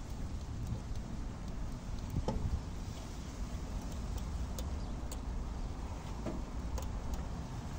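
Light, scattered clicks and taps of wire terminals and a screwdriver being handled at an air conditioner's electrical terminal block, over a steady low hum.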